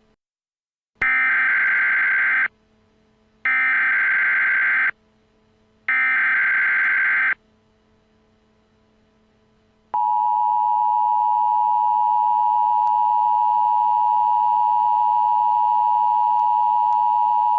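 Emergency Alert System tones: three short bursts of digital SAME header data, each about a second and a half, followed about ten seconds in by the steady two-tone EAS attention signal, which holds.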